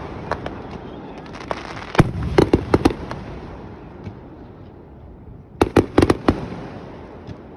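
Fireworks going off in quick clusters of sharp bangs and crackles, one group about two seconds in and another about six seconds in, with a fading rumble between them.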